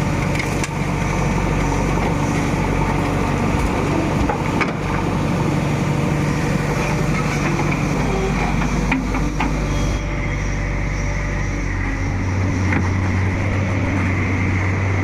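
Heavy diesel engine of earthmoving machinery running steadily, with a few faint knocks. Its note changes about twelve seconds in.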